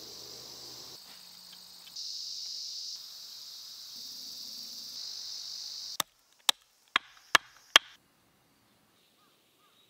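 Steady high-pitched insect chorus, which cuts off suddenly about six seconds in. Then five sharp knocks, about half a second apart, as a blade is driven into a birch log to split it.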